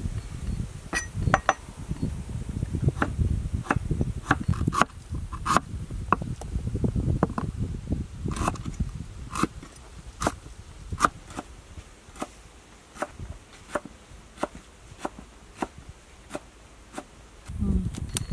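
Cleaver slicing ginger and lemongrass on a wooden chopping board: sharp knocks as the blade strikes the board, a little more than one a second, with a low rumble under the first half.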